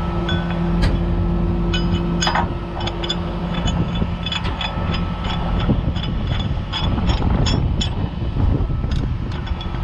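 A heavy truck's diesel engine running steadily, with a hum over it that stops about four seconds in. Many short, sharp clicks and clanks are scattered over the engine throughout.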